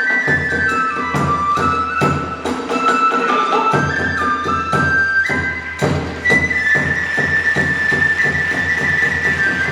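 Hiroshima kagura accompaniment: a transverse bamboo flute plays held, stepping notes over a quick, steady beat of drum and hand-cymbal strikes.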